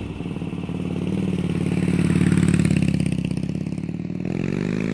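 Motorcycle engine running with a steady, pulsing exhaust note, then rising in pitch as it revs up near the end.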